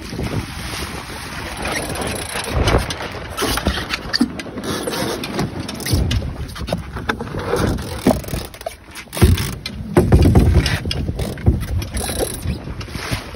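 Wind buffeting the microphone and water rushing along the hull of a small sailboat under way. Scattered knocks and clicks run through it, from the boat's fittings and the phone being handled.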